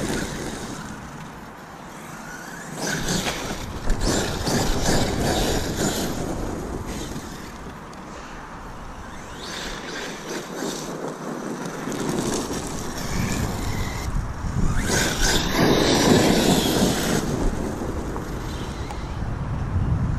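Arrma Kraton EXB 1/8-scale RC truggy with a Max6 brushless system being driven over rough ground, its tyres and chassis making a steady rough scraping noise. The noise swells loudest about three seconds in and again around fifteen seconds.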